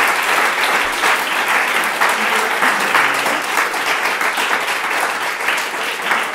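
Lecture audience applauding: many people clapping steadily at the end of a talk.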